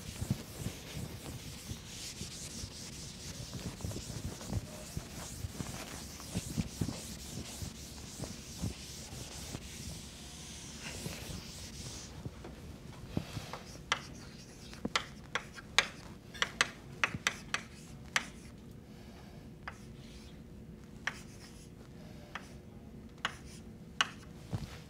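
A chalkboard eraser rubbing back and forth across a blackboard for about twelve seconds. It is followed by chalk writing on the board in sharp taps and short scratchy strokes.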